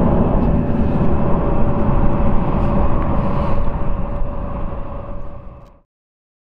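Rumble of a departing Boeing 737-800's CFM56-7B jet engines climbing away, with a steady hum over it. It fades from about four seconds in and cuts out to silence near the end.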